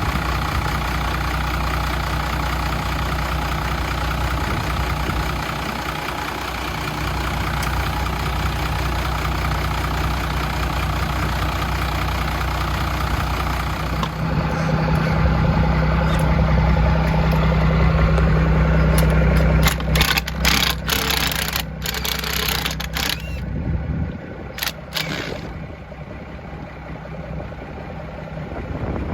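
A pickup truck engine idling steadily, running a little louder for a few seconds about halfway through, then shutting off near the end. A run of sharp knocks and clanks comes just before and after it stops.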